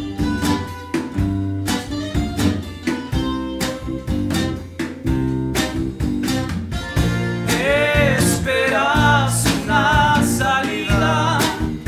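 Folk band playing: strummed acoustic guitar and tiple over bass and drums with a steady beat. About seven and a half seconds in, a voice comes in singing with a wide vibrato.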